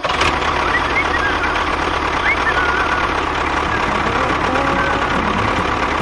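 Tractor engine running steadily at idle, with a few brief high chirps over it in the first half.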